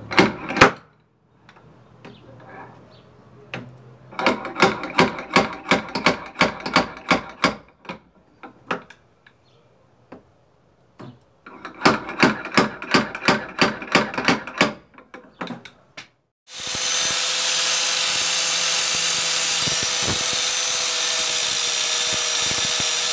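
Slide hammer of a spotter dent puller, its tip welded to a dented steel rocker panel, knocked back in two quick series of sharp metallic knocks to pull the dent out. About 16 seconds in, an angle grinder with a sanding disc starts and runs steadily with a high whine.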